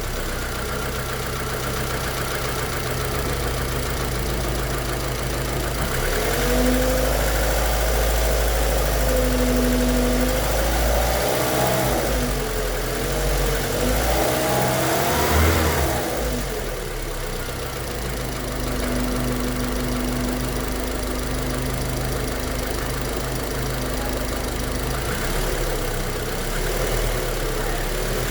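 Volkswagen Fox 1.6 engine running, revved up and down a few times in the middle and otherwise idling, with a knocking noise of looseness that the owner suspects comes from worn main bearings or connecting-rod bearings.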